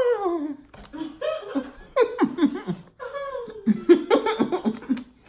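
A person laughing in several bursts of quick, choppy voiced pulses, opening with a falling vocal sound and dying away near the end.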